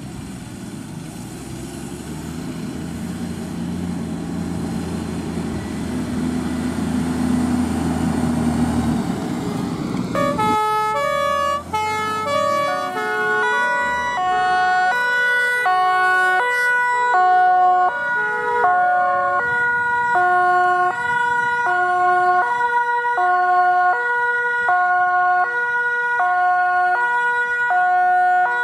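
A heavy vehicle's engine running and getting louder. From about ten seconds in, a German two-tone emergency siren (Martinshorn) takes over, alternating between a high and a low tone at a steady pace and growing louder as the vehicle approaches.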